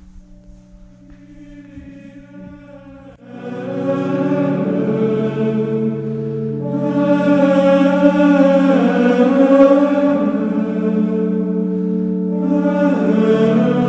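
Background music: slow, chant-like choral music in long held chords, swelling much louder about three seconds in.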